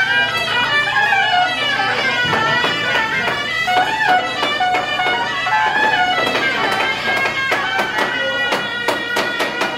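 Chinese temple marching band playing a lively melody on wind instruments, with drum and hand-cymbal strikes. The strikes come thick and fast over the last few seconds.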